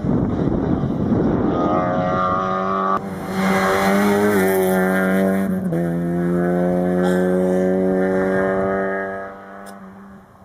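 Rally car engine at full throttle on a closed stage. A loud, rough roar at first gives way to a steady high engine note. The note drops in pitch twice and fades out near the end.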